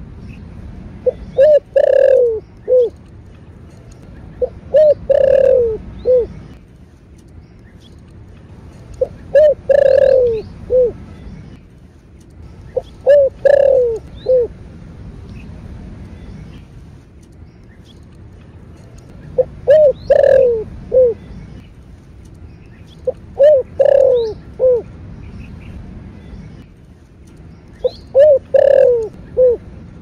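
Spotted dove cooing, a call of the 'thổ bầu' voice type: seven phrases a few seconds apart, each two or three quick short notes, then a longer falling coo and a short final note.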